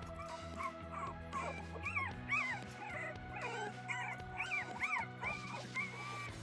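Young Boston Terrier puppies whimpering and squeaking in many short rising-and-falling cries, more of them from about two seconds in, over background music with sustained notes.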